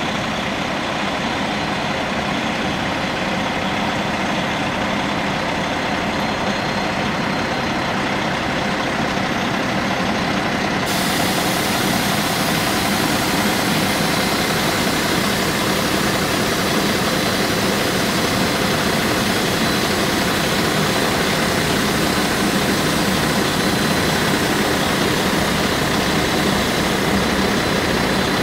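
Kenworth semi-truck's diesel engine running steadily at low revs while the rig creeps slowly, bringing the lowboy's detachable neck up to the trailer deck.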